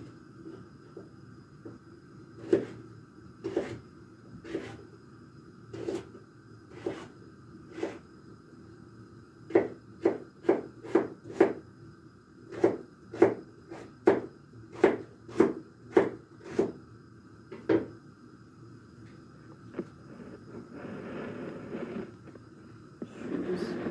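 Kitchen knife chopping vegetables on a wooden cutting board. A few scattered chops come first, then a steady run of about two chops a second. A soft rustle follows near the end.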